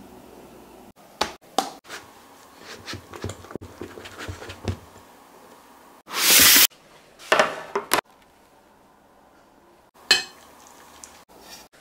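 A run of kitchen sounds from making mascarpone cream: a wire whisk clinking and scraping in a glass bowl, a short, loud rush of noise about six seconds in, and coffee splashing into a glass baking dish near the end.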